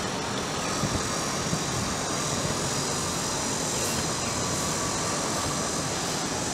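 Steady outdoor city background noise: a continuous, even roar of street traffic with no distinct strikes or changes.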